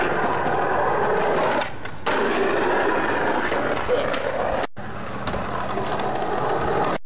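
Skateboard wheels rolling on asphalt, a steady rolling noise interrupted by a brief dip near two seconds in and an abrupt gap near five seconds in.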